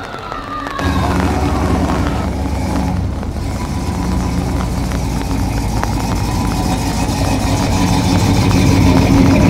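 A classic car's engine running with a deep, steady rumble as the car rolls slowly past. It starts abruptly about a second in and grows gradually louder.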